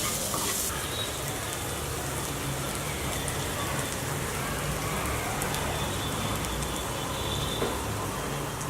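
Pepper chicken sizzling steadily in hot oil in a pan as it fries dry.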